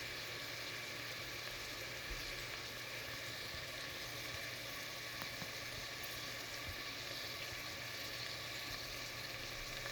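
Food frying in a pan: a steady sizzle with a few faint pops.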